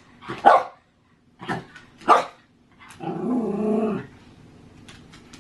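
Small dog barking at a sound-activated dancing toy: three short barks in the first two seconds or so, then a longer drawn-out sound of about a second.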